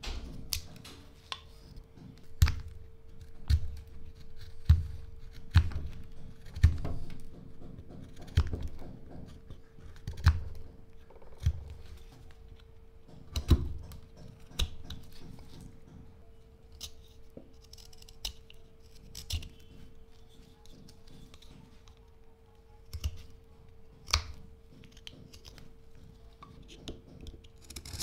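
Carving knife slicing chips from a hard black locust (Robinia) stick: a series of crisp cuts, each with a dull knock, about one a second at first and sparser in the second half.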